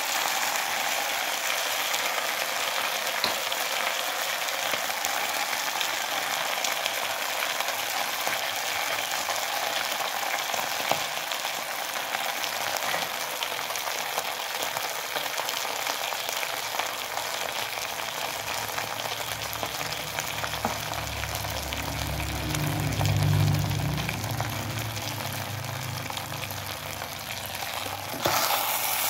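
Beef and macaroni sizzling steadily as they are stir-fried in a pan. A low rumble swells in after about two-thirds of the way and fades again before the end.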